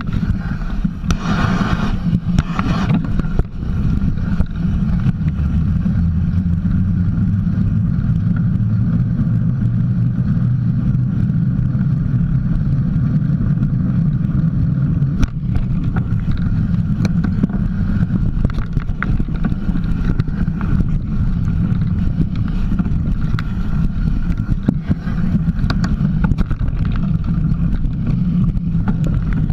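Mountain bike rolling over a dirt trail: a loud, steady rumble of wind and knobby-tyre noise on a camera mounted beside the front wheel, with scattered clicks and rattles from the bike.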